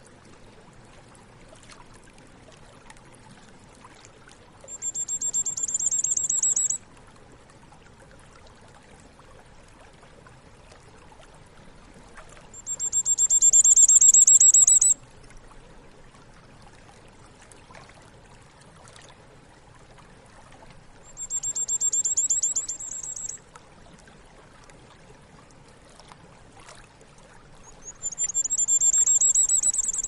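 A high-pitched trill of very rapid pulses, about two seconds long, repeated four times roughly eight seconds apart, the last one rising slightly in pitch. Underneath is a faint steady trickle of water.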